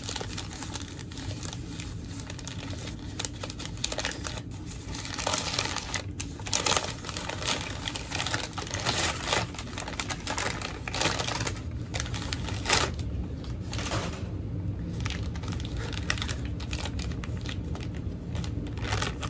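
Packing paper and a plastic bag crinkling and rustling in irregular crackles as a skateboard truck is unwrapped by hand, busiest in the middle.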